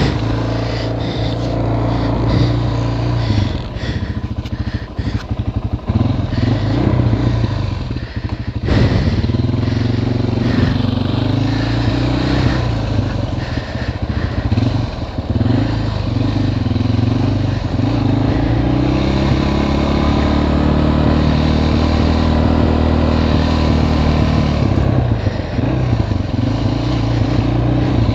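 Suzuki sport ATV engine running as the quad is ridden slowly, its revs rising and falling with the throttle.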